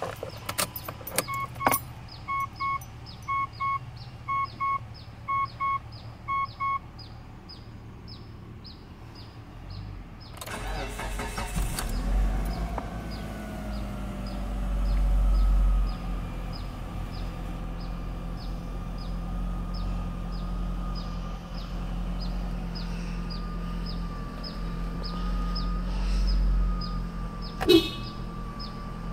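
Clicks and a dashboard chime beeping in five short pairs. Then the starter cranks for about two seconds and the Mitsubishi Grandis's 2.4-litre inline-four catches, flares up and settles into a fast cold idle around 2,000 rpm.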